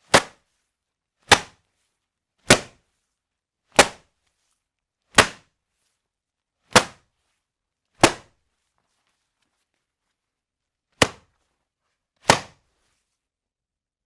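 Wet laundry beaten by hand: nine sharp slaps of cloth striking down hard, about one every 1.3 seconds, with a longer pause before the last two.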